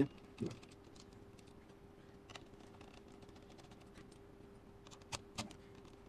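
Light metallic clicks and taps of a small Phillips screwdriver working the heatsink screws in a laptop, two louder clicks at the start and two near the end, over a faint steady hum.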